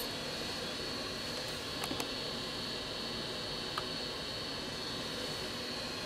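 Steady hiss of air from a running fan, with a few faint light clicks: two close together about two seconds in and one near four seconds.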